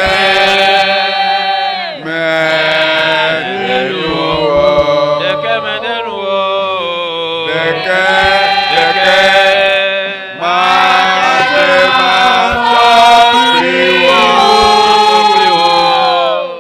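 A man's voice singing a slow, chant-like hymn into a microphone, loud through the church's sound system. The notes are long and drawn out, in phrases of about two seconds with short breaths between them.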